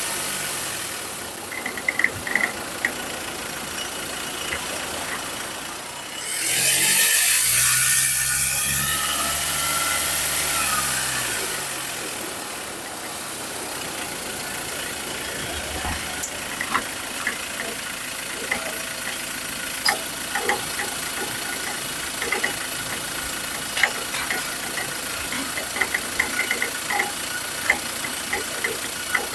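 Ford Ranger pickup being driven, heard through a microphone tied at the suspension: engine and road noise, with a loud rush of noise about six seconds in, and repeated short knocks and rattles from the suspension, the noise of a worn stabilizer (sway bar) end link.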